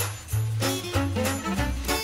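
Background music with a steady beat of about three strokes a second over a stepping bass line.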